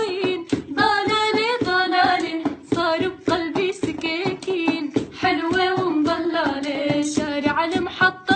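A woman singing an Arabic folk song, drawing out long ornamented notes that waver and slide between pitches.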